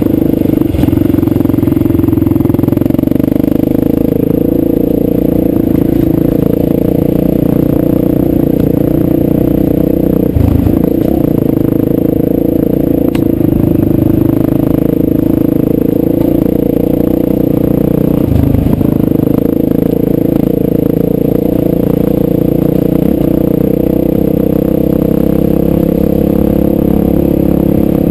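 Dirt bike engine running steadily under load while riding a gravel track, heard from on board the bike. Its note briefly dips twice, about ten and about eighteen seconds in.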